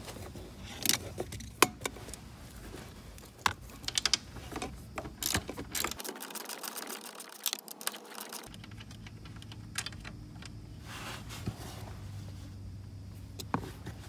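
Hand ratchet on a 10 mm socket clicking in short, irregular runs, with light metallic clinks, as the nuts holding the airbag control module are loosened.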